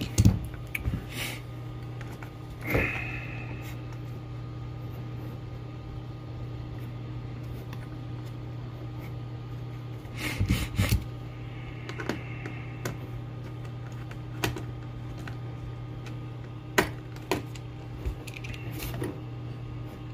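Scattered clicks and knocks of small plastic and metal hardware being handled as clips and washers are fitted onto a hood bug deflector, with louder clusters about a second in, around ten seconds in and near the end. A steady low hum runs underneath.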